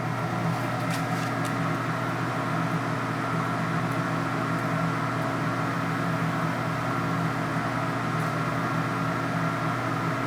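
Southwest TRAK TRL 2460SX CNC lathe running with a steady mechanical hum, a few faint clicks about a second in.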